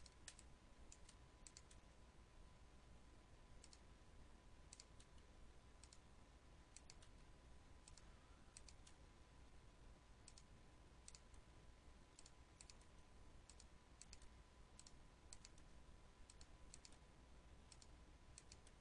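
Faint, scattered clicks of a computer mouse and keyboard being worked, many coming in quick pairs, over a low steady hum and a faint steady high tone.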